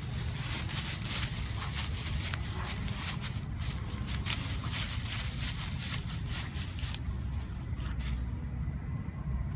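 Dry fallen leaves rustling and crackling as a dog pushes its nose through them, searching, over a steady low rumble. The crackling thins out about seven seconds in.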